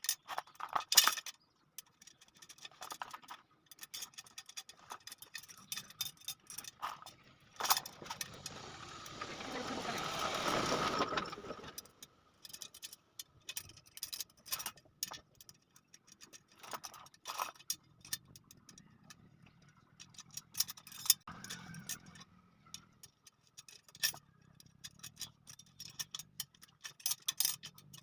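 Irregular metallic clicks and clinks of steel wire spokes being handled and fitted into a motorcycle wheel hub and rim. A longer rushing or scraping noise swells and fades from about 8 to 12 seconds in.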